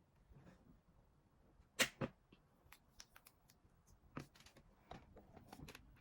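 Faint clicks and taps of toy pieces and packaging being handled, with one sharper click just under two seconds in and a run of small clicks near the end.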